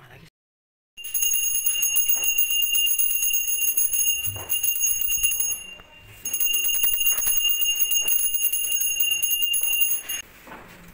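Small puja hand bell rung rapidly and continuously during evening aarti, a bright sustained ringing. It breaks off briefly about halfway through, then rings on until near the end.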